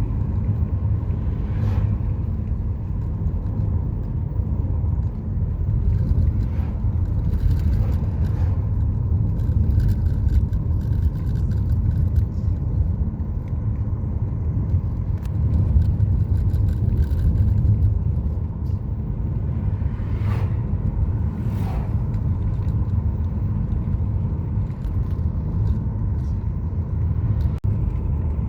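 Sea surf breaking on a beach: a steady low rumble of waves, with a couple of louder hissing washes a little past the middle.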